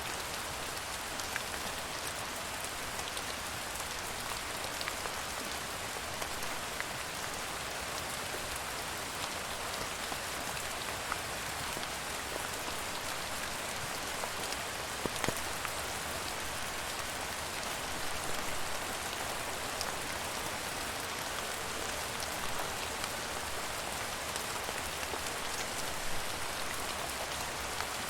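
Steady rain falling on a surface, a constant hiss with scattered individual drops ticking through it.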